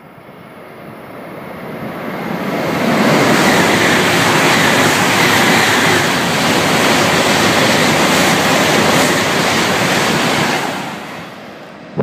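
Coupled 17-car E3-series and E2-series Shinkansen passing through a station at speed without stopping: a rushing noise of wheels and air that builds over the first three seconds, holds steady as the cars go by, and dies away about ten and a half seconds in.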